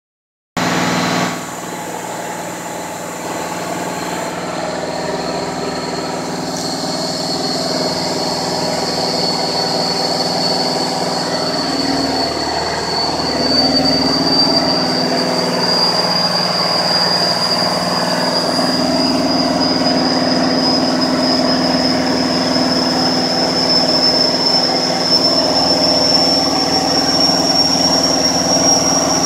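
Rebuilt marine diesel engine running steadily on a dynamometer at about 2,350 rpm while the load is raised, power climbing from about 400 to 640 hp. It grows gradually louder, with a high whine that slowly rises in pitch.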